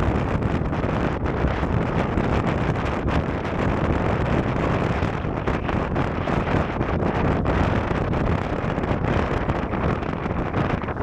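Strong wind buffeting the microphone: a steady, dense rumble with small gusts.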